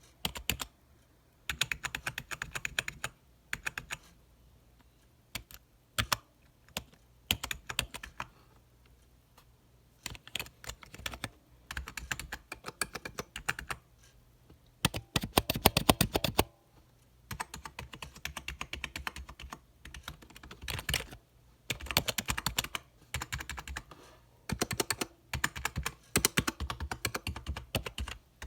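Typing on a cheap budget computer keyboard: quick runs of key clicks in bursts of a few seconds with short pauses between, including a fast, dense flurry about halfway through.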